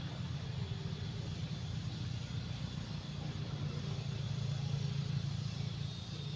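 Steady low engine hum from a motor vehicle, growing a little louder about two-thirds of the way through. Behind it is a high insect trill that pulses on and off.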